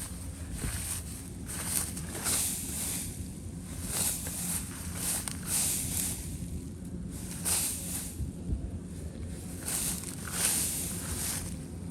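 Rice combine harvester's engine running steadily, with repeated swishing noises about once a second over it.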